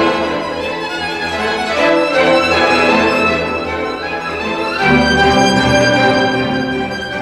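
Orchestral background music led by bowed strings, playing long held chords; the harmony shifts and swells about five seconds in.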